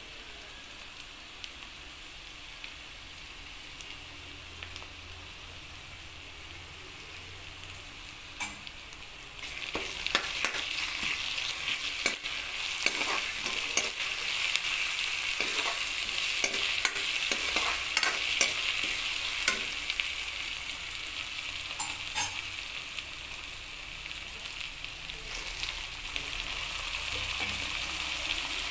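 Sliced onions, green chillies and ginger-garlic paste sizzling in hot oil in a kadai, stirred with a spatula that clicks and scrapes against the pan. The sizzle grows clearly louder about a third of the way in.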